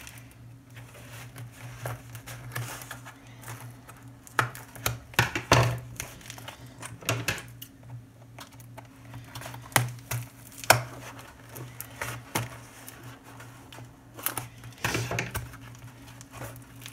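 Scissors snipping through tape and cardboard on a small parcel, with the box being handled and tape crinkling: irregular sharp snips and clicks. A steady low hum runs underneath.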